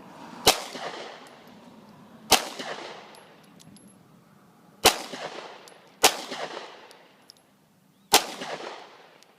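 Five 9mm pistol shots from a Glock 19, fired slowly at uneven gaps of one to two and a half seconds, each crack followed by a short echoing tail.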